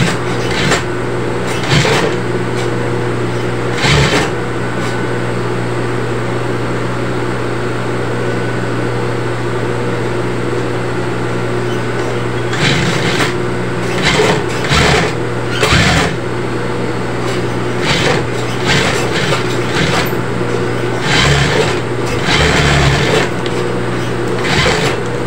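JUKI two-needle flatbed industrial sewing machine stitching in repeated short runs of a second or two, over a steady low hum.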